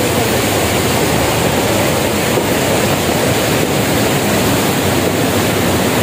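Steady, loud rush of flowing water from a waterfall-fed stream.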